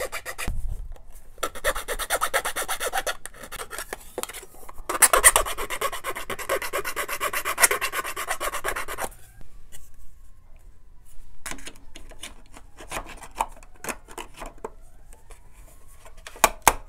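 Small needle file rasping back and forth in a hole cut in thin aluminium sheet, in quick strokes and short bursts, cleaning up a hole cut slightly off its mark. After about nine seconds the filing stops, leaving quieter scattered clicks and taps, with two sharp taps near the end.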